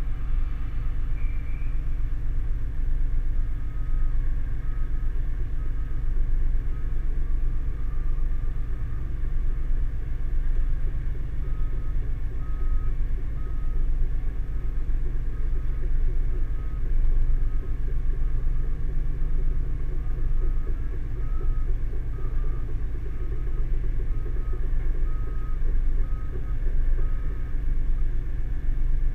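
Excavator diesel engines running steadily with a low rumble. From about four seconds in, a travel alarm beeps at a steady rate, warning that a tracked excavator is moving.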